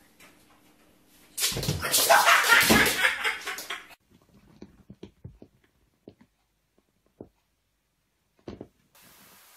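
A sudden loud burst of commotion for about two and a half seconds, typical of a cat startled by a cucumber scrambling away, cutting off abruptly, followed by a few faint taps and knocks.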